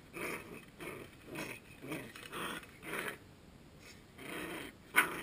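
Coton de Tulear puppy play-growling and yapping in short bursts, about two a second, with a sharp, louder snap near the end.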